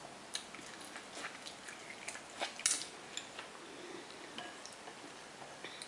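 Close-up eating sounds: chewing corn on the cob, with a string of short wet clicks and crackles and a wooden spoon knocking in a glass bowl of sauce. The clicks come thickest in the first half, the loudest just before the midpoint, then thin out.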